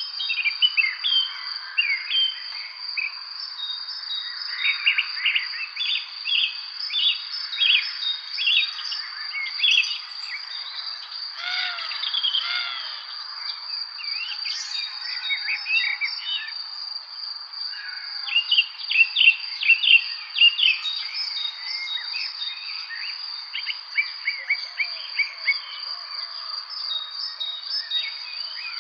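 Several songbirds chirping and singing in quick, overlapping bursts of short notes, loudest in a cluster a little past the middle. Under the birds runs a steady, unbroken high-pitched insect trill.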